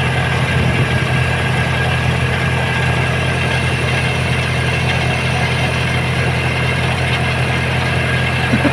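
Komatsu bulldozer's diesel engine running at a steady, unchanging note.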